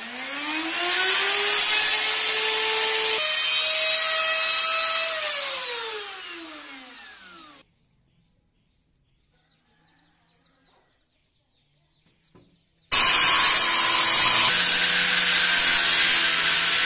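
A handheld electric router spins up with a rising whine, runs at speed, then winds down with a falling whine and stops. After a few seconds of near quiet with faint knocks, a Bosch circular saw starts abruptly at full speed and runs steadily.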